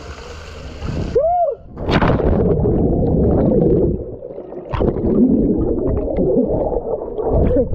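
Water heard through a submerged action camera: muffled rushing and gurgling of bubbles and churned pool water, starting with a splash about two seconds in.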